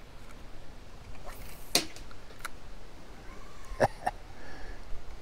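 A few scattered sharp clicks and knocks: a short hiss ending in a click about a second and a half in, a fainter click, then the loudest knock and a second one close behind it near four seconds in.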